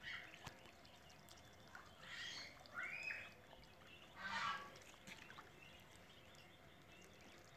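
Muscovy ducklings giving a few faint, short, high calls, one of them a chirp that rises and falls, about two, three and four and a half seconds in.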